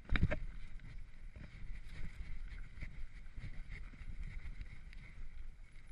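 Mountain bike rolling fast down a rough dirt singletrack: tyres crunching over the trail and the bike rattling over bumps, with a cluster of sharp knocks just after the start.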